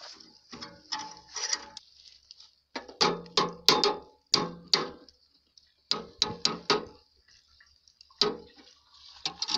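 Hammer blows on metal in quick clusters of two to six strikes, each clank ringing briefly; the chopper's engine is not running.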